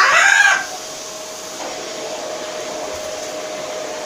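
A green-winged macaw gives one short, loud call at the very start that rises and falls in pitch. A steady background hiss with a faint, thin hum carries on under it.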